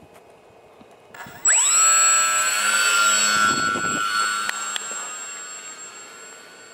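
A foam RC plane's electric motor and propeller spinning up sharply to full throttle for a hand launch, about a second and a half in. The high whine holds steady, then fades as the plane flies away.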